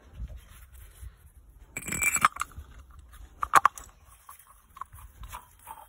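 Metal kerosene filter housing handled and fitted back together in gloved hands. A short scraping rush comes about two seconds in, then a couple of sharp metal clinks and a few lighter taps.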